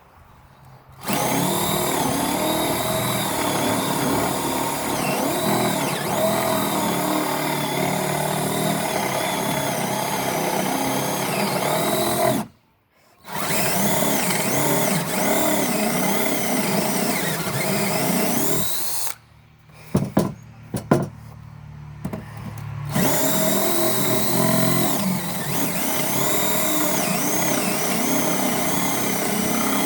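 DeWalt DC970 compact 18-volt cordless drill with a 1.4 Ah battery, boring a hole through a board under heavy load, its motor pitch wavering as the bit bites. It stops dead about 12 seconds in and starts again. Around 19 to 23 seconds it drops off to a few short trigger bursts, then runs steadily again.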